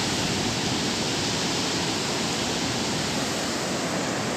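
Surf of the Bay of Bengal crashing and rushing onto the beach, a steady loud roar of breaking waves, stirred up by an approaching cyclone.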